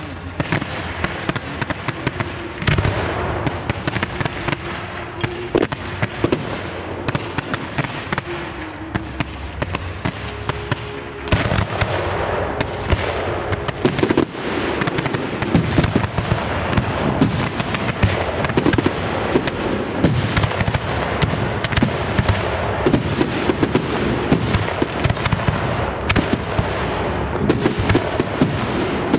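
Professional fireworks display: shells and comets being fired and bursting in rapid, irregular bangs and pops. The barrage gets louder and denser about eleven seconds in.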